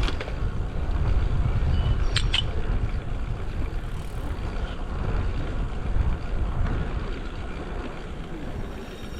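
Wind rumbling on an action camera's microphone while a road bike is ridden, with a couple of sharp clicks about two seconds in. The rumble eases off toward the end.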